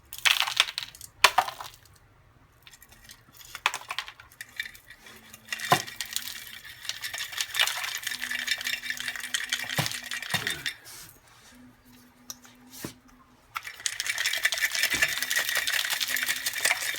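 Broken pieces of a catalytic converter's internal substrate clinking and rattling as they are shaken and poured out of the converter into a box. It starts as a few sharp separate clinks, then becomes long stretches of steady rattling pouring out, and is heaviest near the end. Contents coming loose like this are the sign of a failed converter, here the cause of bank 2 misfire codes.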